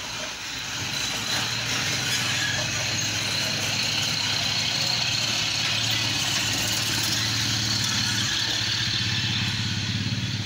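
A small engine idling steadily under an even hiss.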